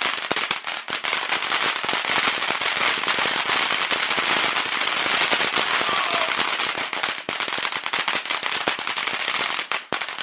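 Gingerbread Man fountain firework by Brothers Pyrotechnics spraying, a steady hiss with dense, rapid crackling.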